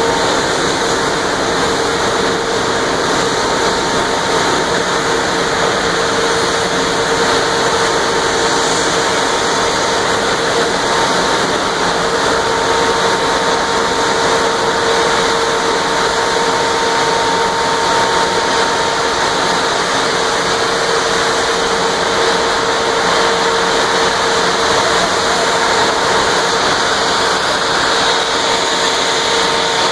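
Steady, loud industrial plant noise: a broad rushing sound with a constant hum running under it, unchanging throughout.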